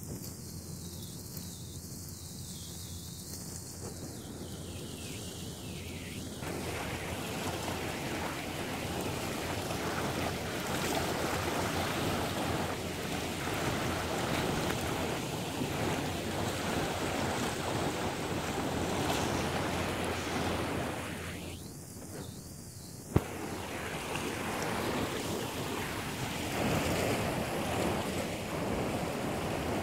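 Ocean surf washing over a rocky reef, mixed with wind gusting across the microphone. It grows louder a few seconds in and dips briefly later, and a single sharp click comes just after the dip.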